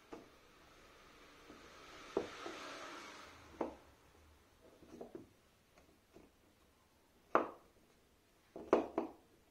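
Cut broom-handle dowel pegs of a coat rack clacking against one another as they are swung down on their pivot bolt by hand: a rubbing scrape about two seconds in, then a few sharp wooden knocks, the loudest a little after seven seconds and a quick pair near the end.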